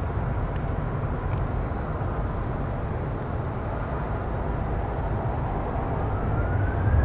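Boeing 737-800's CFM56-7B turbofan engines spooling up for takeoff: a steady low rumble, with a rising whine coming in about six seconds in as the sound grows louder.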